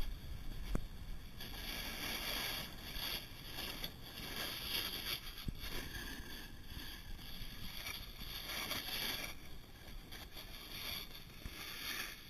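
Hiss of edges sliding and carving over groomed snow, swelling and fading in surges every second or two as the turns link.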